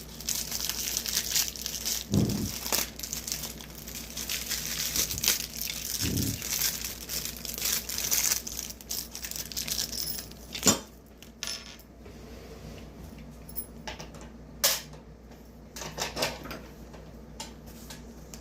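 Plastic packaging rustling and crinkling for about ten seconds while a radiator heater's legs and fittings are unpacked, then a few separate sharp clicks and knocks of the parts being handled.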